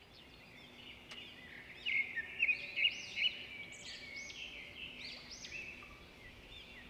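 A dense chorus of small birds chirping and twittering, many short rising-and-falling calls overlapping, fading in at the start.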